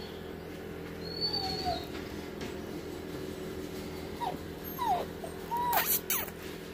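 Wet husky puppy whimpering: a few short, high, falling whines, mostly in the second half, with a couple of sharp clicks near the end.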